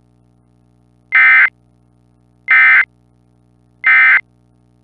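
Three short, loud electronic data bursts of an Emergency Alert System broadcast, evenly spaced about 1.4 s apart: the end-of-message signal that closes an alert. A faint steady low hum sounds underneath.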